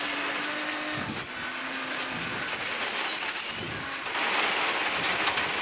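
Rally car driven hard on a gravel stage, heard through the crew's helmet intercom: a steady hiss of tyre and gravel noise with a faint engine note underneath, the hiss growing louder about four seconds in.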